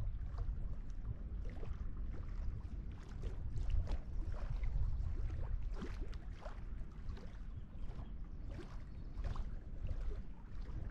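Small waves lapping and splashing irregularly against a granite lakeshore, over a steady low rumble of wind.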